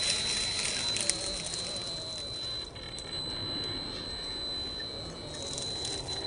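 Electric whine from a 1/10-scale RC rock crawler's 2200kv brushless motor and ESC: one steady high tone while the truck crawls slowly. Over it, tyres and chassis scrape on granite, loudest in the first second and again near the end.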